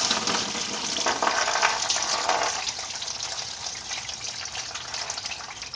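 Engine coolant pouring out of a Nissan KA24DE engine as its water pump comes off, splashing into a drain pan below. The flow is heaviest at first and gradually eases off.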